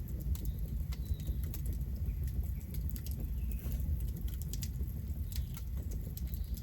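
Wood campfire crackling: irregular sharp snaps and pops over a steady low rumble.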